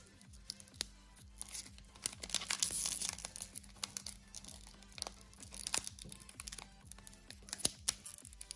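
Foil Pokémon booster pack wrappers crinkling as they are handled, with scattered light clicks and a longer stretch of rustling a couple of seconds in.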